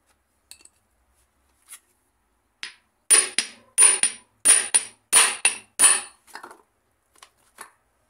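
Hammer blows on a shaft driven into a blind bearing packed with wet toilet paper, the hydraulic trick for pushing a seized bearing out of a scooter transmission cover. A few light taps come first, then five hard metallic blows about two-thirds of a second apart, each with a quick rebound tap and a short ring, then a few lighter taps.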